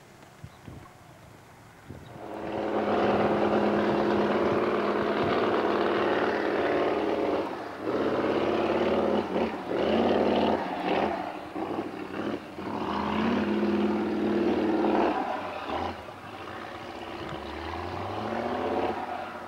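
Off-road trial truck's engine starting about two seconds in and running hard at high, steady revs while climbing a steep spoil-heap slope. It dips and surges a few times in the middle and eases off near the end.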